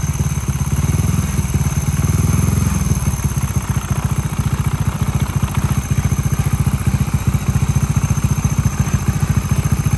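Honda 67-type 49cc single-cylinder four-stroke motorbike engine running on a stand. It is a little above idle for the first three seconds or so, then settles into a steady, even idle beat.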